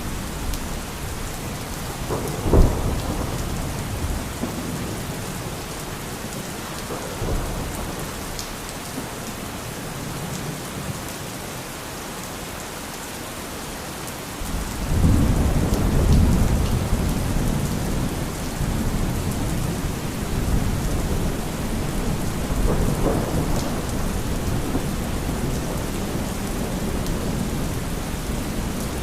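Thunderstorm: steady rain hissing, with a sharp thunderclap about two and a half seconds in. About halfway through, a long rolling rumble of thunder swells up and slowly fades, with fainter rumbles between.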